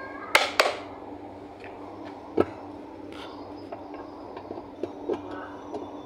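Handling sounds at a plastic washing-machine pulsator: two sharp clicks close together near the start, one knock about halfway through, and faint ticks between them, as hands and a screwdriver work at the loosened pulsator.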